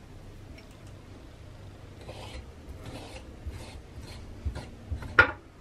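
Kitchen knife slicing raw chicken thigh into strips on a wooden cutting board: a run of short scraping strokes of the blade against the board from about two seconds in, ending in one sharper knock near the end.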